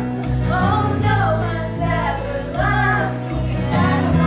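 Live acoustic band playing a song: upright bass and strummed acoustic guitar, with several voices singing the melody.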